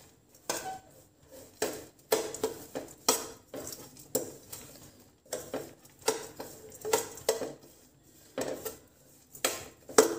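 A steel spoon scraping and clattering against a stainless steel frying pan as coarsely chopped nuts are stirred and dry-roasted in ghee. The strokes are irregular, about one or two a second.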